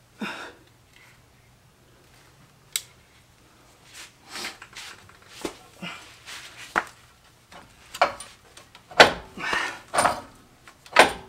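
Irregular metal clanks and knocks from a compressed coil spring, held by spring compressors, being worked into the front coil seat of a Jeep JL. The knocks come sparsely at first, then grow louder and closer together in the second half, the loudest about nine seconds in.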